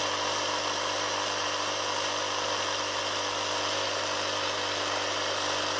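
MotoMaster Eliminator booster pack's built-in air compressor running with a steady motor hum, but it blows no air through its hose: the compressor is broken.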